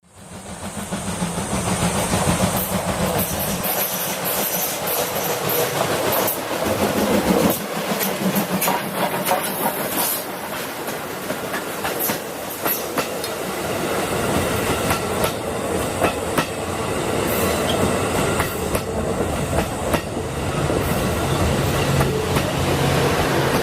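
A steam-hauled train of coaches headed by a D51 locomotive passes close by, its wheels clattering over the rail joints in a steady run of clicks.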